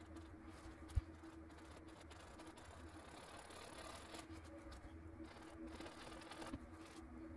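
Faint room tone with a steady low electrical hum, and a single sharp click about a second in.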